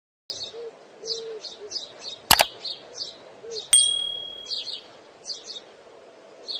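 Alexandrine parakeet chirping in a run of short, high, repeated calls. A sharp click comes about two seconds in, and a second click near the middle brings a brief ringing ding.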